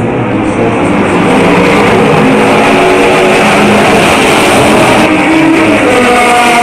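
Historic racing cars at speed on the circuit, several engines running at once with a loud, steady note. The pitch of some engines drops about five seconds in as cars pass or shift down.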